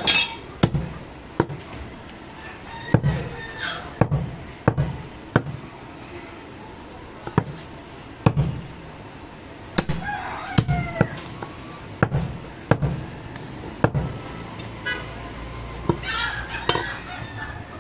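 Heavy curved butcher's cleaver chopping goat meat on a wooden chopping block: a sharp knock every second or less, at an uneven pace.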